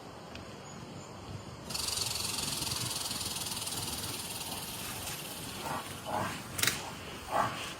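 Large horned animal giving a steady hiss that starts suddenly about two seconds in and lasts a few seconds, followed by several short grunting calls near the end, leading into its call.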